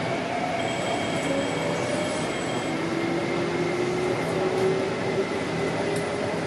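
MTR Kwun Tong Line metro train heard from inside the passenger car while running: a steady rumble of wheels on track, with a faint electric whine that slowly rises in pitch over the last few seconds.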